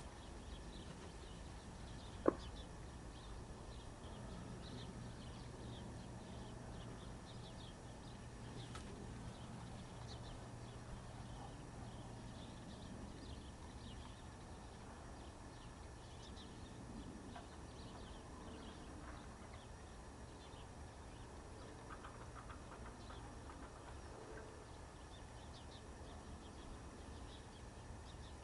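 Birds chirping faintly over a low steady hum, with short high calls repeating on and off. A single sharp click comes about two seconds in.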